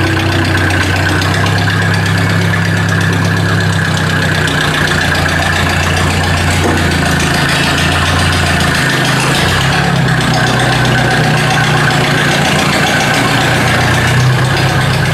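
Ford 800 tractor engine running at low speed on its newly fitted electronic ignition as the tractor drives slowly forward. The engine note dips and picks up again about nine to ten seconds in.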